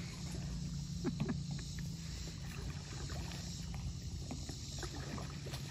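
Stand-up paddleboard paddle dipping and pulling through lake water: a few soft splashes over a steady low background rumble.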